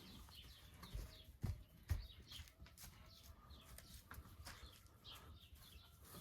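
Small birds chirping faintly, with many short falling chirps, and a few soft low thumps about one to two seconds in.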